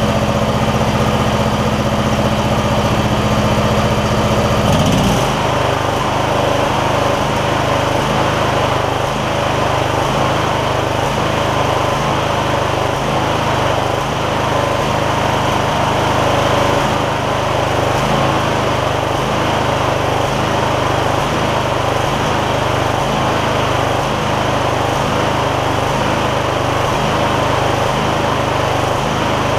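A 20 hp V-twin lawn tractor engine running steadily, its carburetor jets freshly cleared of dirt. About five seconds in its speed drops to a lower, even pace, and it holds there.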